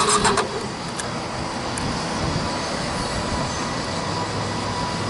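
Yamaha WR250R's electric starter cranking the single-cylinder engine in even pulses, which cuts off abruptly about half a second in without the engine catching, as the error 19 safety-circuit fault keeps it from running. After that, only a steady background rumble, with a low hum coming in near the end.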